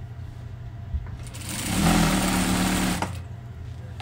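Sewing machine stitching a seam in a single run of about two seconds, starting about a second in, coming up to speed and then stopping sharply.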